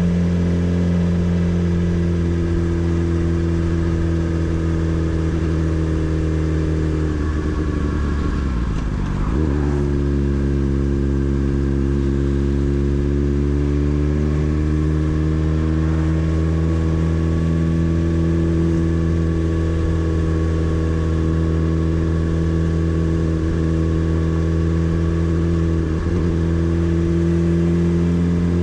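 Motorcycle engine running under way with a steady note. About eight seconds in the pitch sags and dips, then climbs back steadily over the next few seconds.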